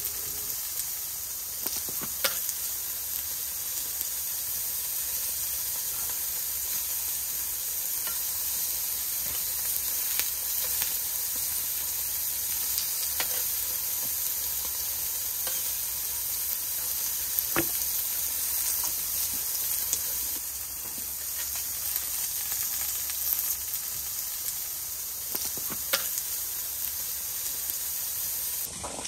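Thin slices of beef sizzling on the grate of a Weber portable gas grill: a steady sizzle with a few sharp pops.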